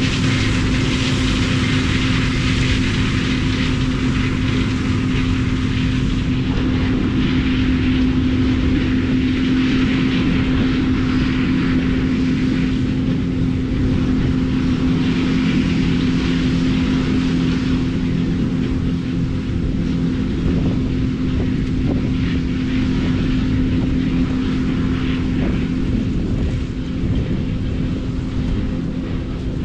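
Heavy harvest machinery running steadily under load: a loud, even engine drone with a strong steady hum and mechanical rattle.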